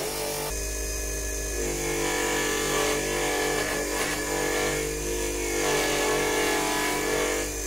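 Bench polishing motor running steadily, spinning a buffing wheel with a metal watch part held against it. The hum changes a couple of times as the part is worked against the wheel.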